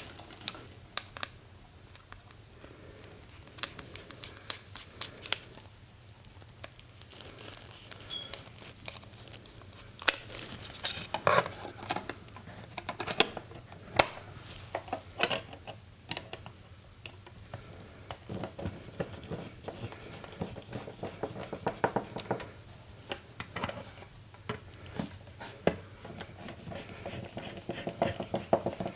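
A plastic wall-outlet cover plate being handled and fitted over a newly installed USB receptacle: scattered small clicks, taps, scraping and rustling.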